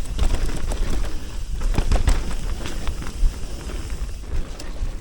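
Mountain bike descending a dirt trail: tyres rolling over the dirt and the bike rattling and knocking over bumps, with a steady low wind rumble on the helmet-camera microphone.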